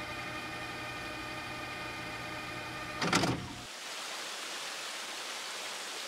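Background music holding a sustained chord, which ends in a short louder hit about three seconds in. Then comes the steady splashing hiss of a small waterfall trickling over rocks.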